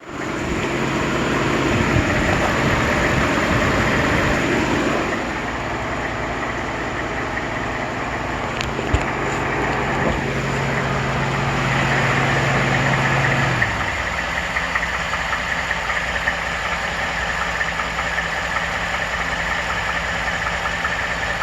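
Ford F-150's 5.0 Coyote V8 idling with a fast, steady ticking knock, the so-called typewriter tick, which the owner hears as a lower-end knock. A low steady hum under the engine stops about 14 seconds in.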